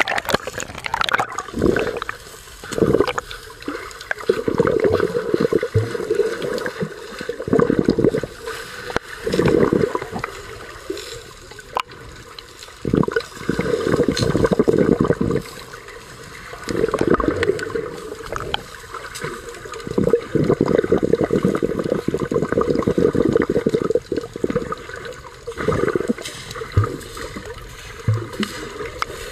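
Muffled rushing and gurgling of water heard through an underwater camera, swelling and fading in irregular surges.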